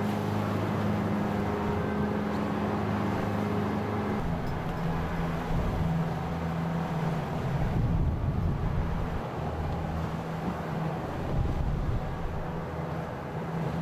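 Motorboat engine running with a steady drone that shifts pitch about four seconds in, over the rush of wind and choppy water.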